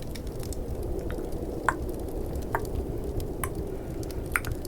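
Four crisp tongue clicks, a little under a second apart, over a steady hiss of snowstorm and fireplace ambience with faint crackles.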